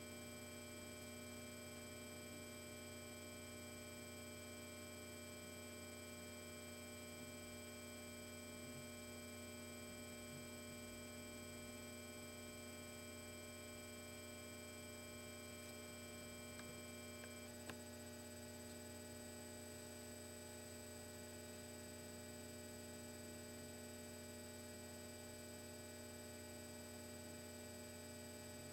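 Faint steady electrical hum with several thin high whining tones over it. Some of the higher tones cut out with a tiny click about two-thirds of the way through.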